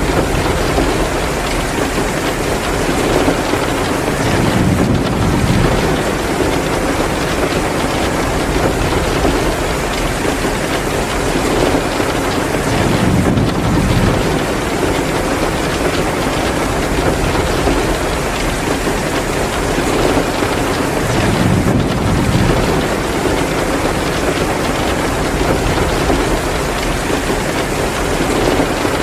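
Heavy rain falling steadily, with a low rumble swelling up and fading about every eight seconds.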